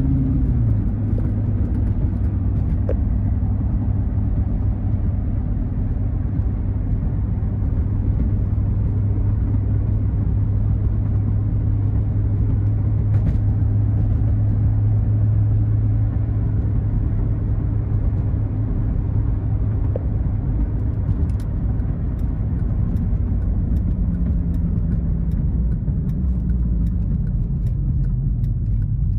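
2005 Chevrolet Corvette's 6.0-litre LS2 V8 cruising at about 2,000 rpm, heard from inside the cabin as a steady low engine drone over tyre and road noise. The drone drops a little in pitch right at the start.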